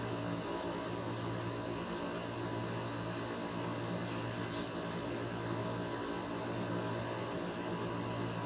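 Steady machine hum and hiss of the room, carrying several steady tones. About four to five seconds in come three faint, short, high scratchy ticks as chalk is rubbed onto the cue tip.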